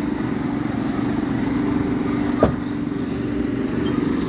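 An engine running steadily with a low, even hum, and a single sharp click about two and a half seconds in.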